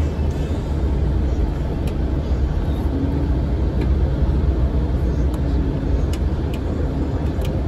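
Steady low rumble of a bus on the move, heard from inside the passenger cabin: engine and road noise, with a few faint clicks scattered through it.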